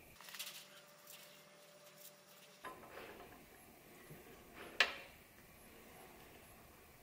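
A brush working grease inside a steel bicycle's bottom bracket shell, with soft scratchy strokes. Then a flat spanner turning a bottom bracket cup, with small metal handling knocks and one sharp metallic clink near the five-second mark.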